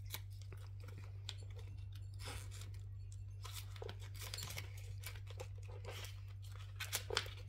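Paper banknotes and cash envelopes being handled in a budget binder: soft, faint rustling and crinkling with a few small clicks, over a steady low hum.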